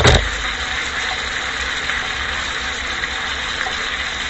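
Steady sizzle of a rib-eye steak frying in butter in a skillet, over a low steady hum, with a single knock right at the start.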